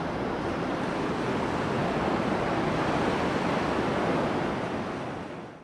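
Ocean surf breaking and washing up on the beach, a steady rush of noise that swells through the middle and fades away near the end.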